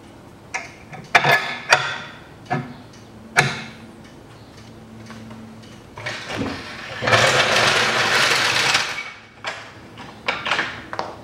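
Metal tool clanks and sharp knocks while a new front engine mount is worked into place, the engine jacked up slightly so the mount will seat. About seven seconds in comes a loud noisy stretch lasting about two seconds, then a few more clicks near the end.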